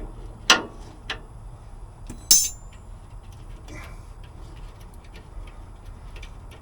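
Metal parts and tools being handled: a couple of sharp knocks, then a louder ringing metallic clink about two seconds in, followed by light ticks and taps.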